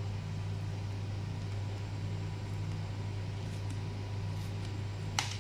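Steady low room hum with faint handling noise as fingers work at a cardboard camera box, and one sharp click about five seconds in.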